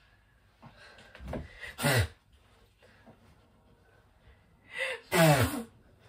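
A person sobbing: two loud, breathy sobbing gasps that slide down in pitch, one about two seconds in and a louder one just after five seconds, each led in by smaller catching breaths.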